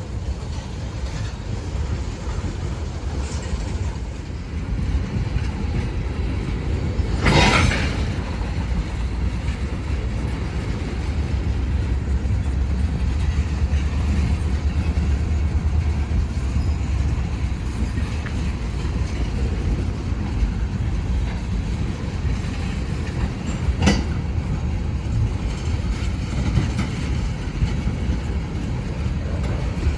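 Loaded ethanol freight train rolling past with a steady low rumble of wheels on rail. A loud bang comes about seven seconds in and a sharper, shorter one near the end.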